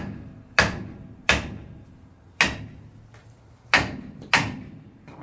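Hammer blows on the seized front brake drum and wheel hub of an old pickup truck. There are about six hard metal strikes at uneven intervals, each with a short ring, meant to free the drum, which will not turn by hand.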